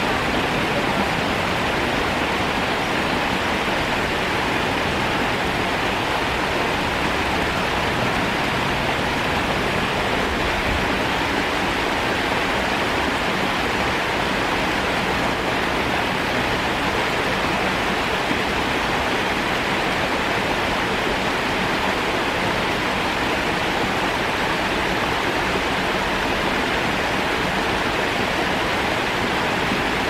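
Water rushing steadily over a rock slab at a small waterfall, an even hiss with no breaks.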